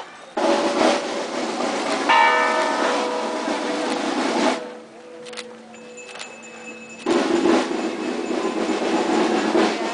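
Church bells clanging in two loud, rapid peals of about four seconds each, with a steady lingering hum in the pause between them.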